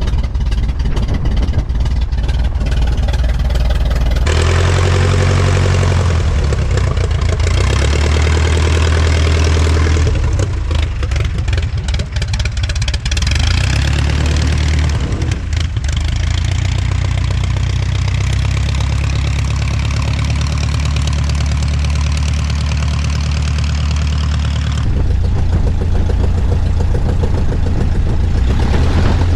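De Havilland Tiger Moth's inverted four-cylinder Gipsy engine running steadily at idle on the ground just after starting, heard close up from the wing with rushing propeller air. The sound changes character a few times, about four seconds in and again near the end.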